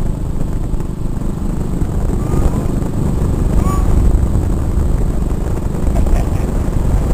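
Wind rumbling over the microphone on a moving motorbike, with the engine running steadily underneath.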